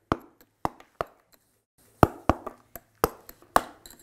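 Wooden mallet striking a steel chisel into soapstone: sharp knocks in uneven runs, three in the first second, a short pause, then a quicker run of about three a second.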